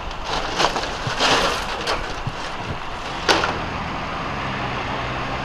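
A few brief scraping noises and a sharper knock about three seconds in, then the steady low hum of a vehicle engine idling.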